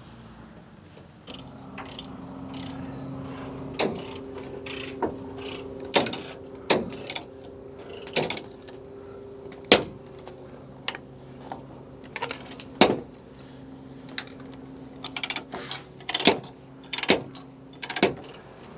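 An engine running steadily, starting about a second in, under irregular sharp metallic clanks and clicks, a couple of them every second or so.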